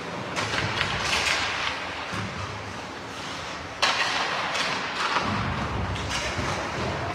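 Ice hockey play in a rink: skate blades scraping the ice in repeated hissing strokes, with a sharp knock about four seconds in.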